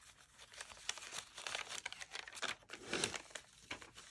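Paper rustling and crinkling as the pages of a handmade paper journal are handled and turned, irregular and loudest about three seconds in.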